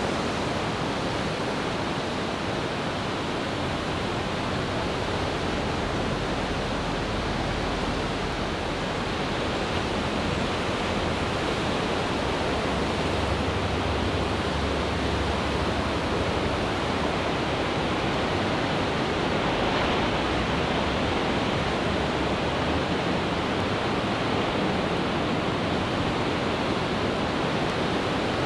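Pacific Ocean surf breaking and washing, a steady, even rush of water noise. A low rumble swells briefly about halfway through.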